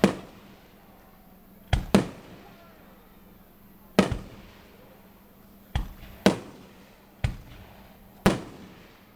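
Aerial fireworks bursting: eight sharp bangs at irregular intervals, some in quick pairs, each trailing off in a short echoing rumble.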